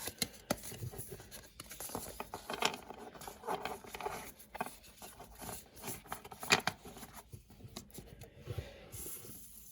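Trading cards being handled by hand: irregular light taps, slides and papery rustles as cards are moved and stacked.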